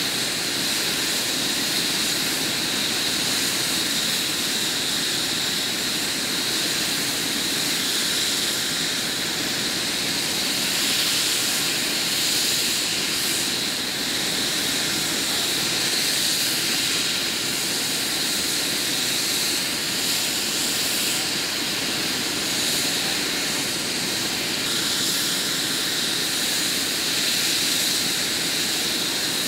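Eurocopter EC145 air-ambulance helicopter idling on the ground, its twin turbines running and main rotor turning: a steady, high turbine whine over the even rush of the rotor.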